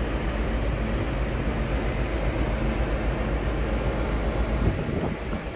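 Wind buffeting the microphone on an open ship's deck: a steady low rumble with a hiss over it, letting up briefly near the end.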